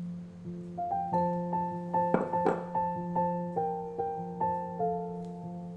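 Soft background piano music, single notes sounding about every half second over a held low tone, with a short noisy sound about two seconds in.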